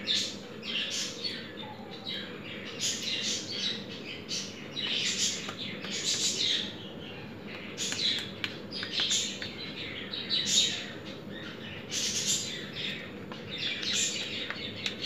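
Small birds chirping again and again in short, irregular calls.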